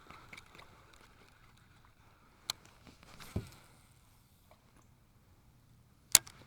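Knocks and clicks on a kayak as fishing gear is handled: a sharp click a little before halfway, a duller thump just after it, and a loud sharp click near the end.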